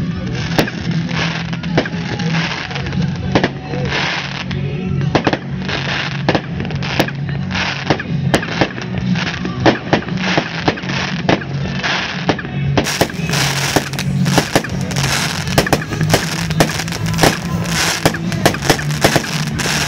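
New Year's Eve fireworks: rockets and firecrackers banging in a quick, irregular stream, the bangs coming thicker in the second half, over a steady low drone.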